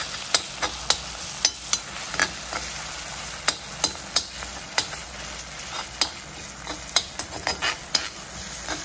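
Chopped onions and tomatoes sizzling in oil in a black kadai while a perforated metal ladle stirs and mashes them. The ladle's edge scrapes and clicks against the pan at an uneven pace, a few times a second.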